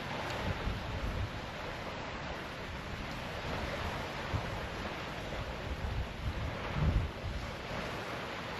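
Strong wind buffeting the microphone in uneven low rumbles, with a stronger gust about seven seconds in, over the steady rush of surf on the shore.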